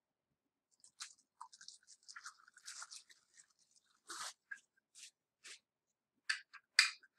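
Clear plastic bag crinkling as small parts are handled in it, followed by a series of light clicks and knocks of hard plastic telescope parts set down on a table, the loudest two near the end.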